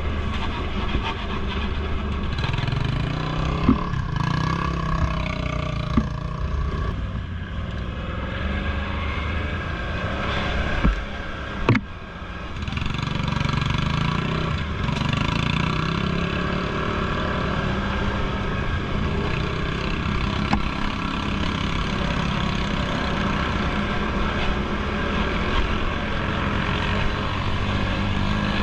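ATV engine running steadily under way on an off-road trail, with a few sharp knocks.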